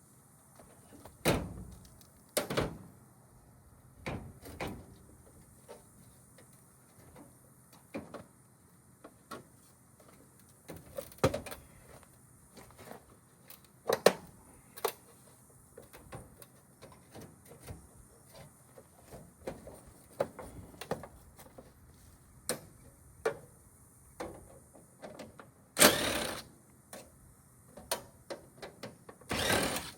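Irregular metal clanks, knocks and rattles of a washing machine being taken apart by hand for scrap. A few loud bangs stand out, and two longer rattling clatters come near the end.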